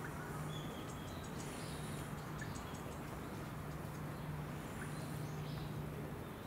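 Outdoor background: a steady hiss and an on-off low hum, with a few faint, short high bird chirps.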